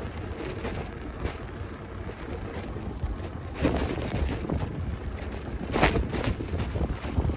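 Wind buffeting the microphone of a phone mounted on a moving bicycle, a steady low rumble, with two brief louder knocks, one about halfway and one about three quarters in.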